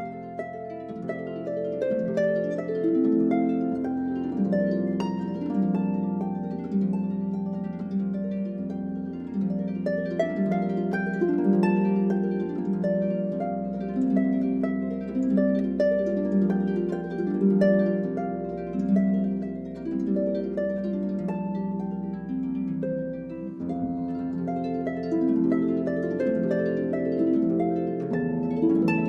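Background music: gentle harp-like plucked notes over sustained bass notes that change every few seconds.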